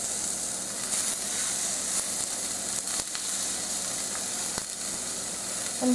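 Raw marinated chicken kebabs sizzling steadily on a hot, lightly oiled nonstick grill pan as the skewers are laid down, with a few faint clicks.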